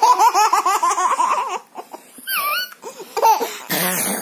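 A toddler laughing: a rapid run of belly laughs for about a second and a half, then a short high-pitched squeal a little after two seconds. Brief laughs and a breathy burst follow near the end.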